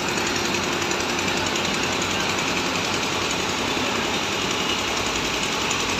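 Caterpillar tracked excavator's diesel engine running steadily close by, with a fast, even clatter.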